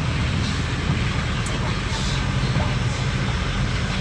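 Steady low rumble of a vehicle on the move: engine and road noise, with no change in speed.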